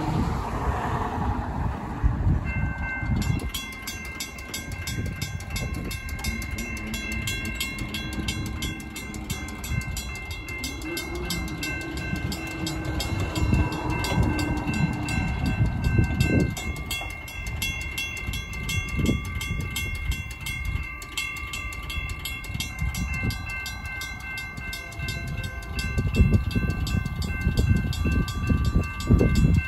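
Railroad crossing signal activating: about three seconds in, the crossing bells, a General Signals Type 2 electronic bell and a second-generation WCH mechanical bell, start ringing and keep ringing in a fast, even stream of dings, over a steady low rumble.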